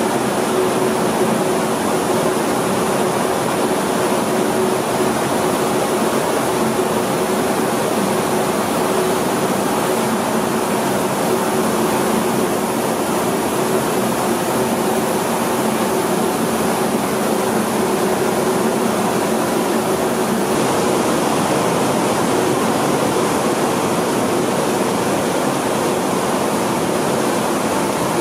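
Rice mill machinery running: a steady, dense rushing noise of milling and grading machines with grain moving through them, over a constant low hum.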